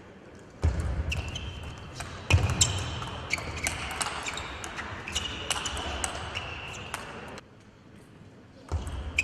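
Table tennis rally: the ball clicking quickly back and forth off the rubber-faced bats and the table, with short squeaks of shoes on the court floor. The clicks stop about seven seconds in, and start again near the end with the next serve.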